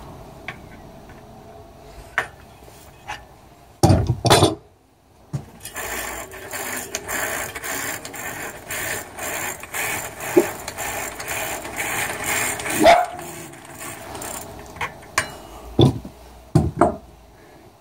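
Bicycle rear cassette being removed with a cassette tool: scattered metal clicks and knocks, a couple of loud clanks about four seconds in, then several seconds of dense rasping, ratchet-like clicking that ends in a knock, and a few more clicks near the end.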